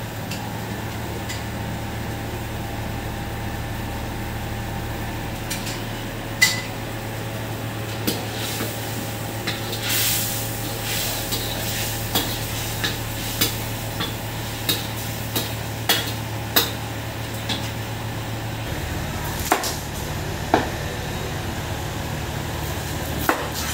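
Metal ladle stirring chicken in a wok, scraping and clinking against the pan in sharp irregular knocks over a steady low hum, with a light sizzle of frying.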